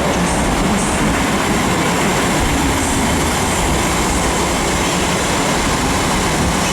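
PESA SA137 diesel railcar running through the station, a loud, steady rumble of the train and its wheels on the track.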